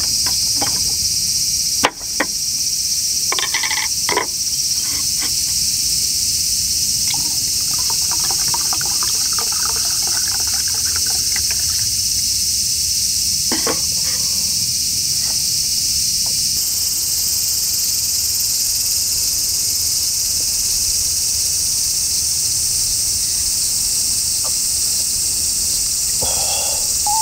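A steady, loud, high shrill of insects. Over it a glass bottle of Hoppy is opened with a sharp click about two seconds in, followed by a few knocks. Near the middle comes a stretch of pouring as the Hoppy goes into a glass of shochu.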